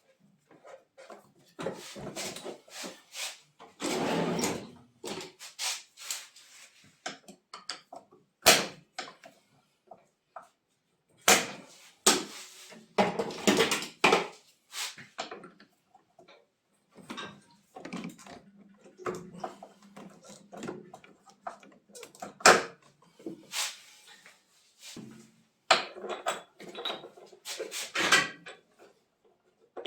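Irregular knocks, clicks and scraping, as of tools and parts being handled, with short quiet gaps between them.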